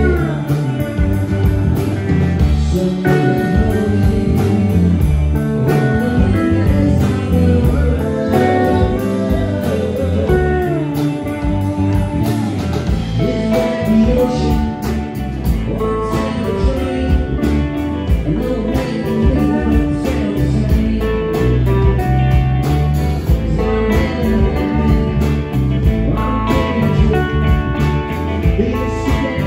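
Live band playing electric guitars over drums.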